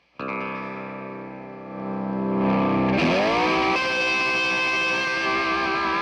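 Electric guitar played through an O.C.E. Hammer heavy fuzz pedal, a Big Muff-style circuit. A fuzzed chord rings out and slowly fades, then about halfway through, louder notes bend up and are held with long, thick sustain.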